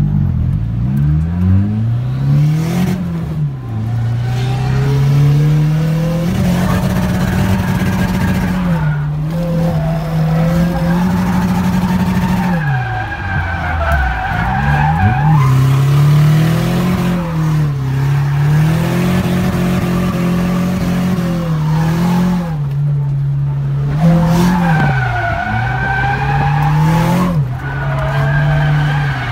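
Turbocharged Nissan 240SX drift car heard from inside the cabin: its engine revs up and down over and over through a drift run, with the tires squealing as the car slides.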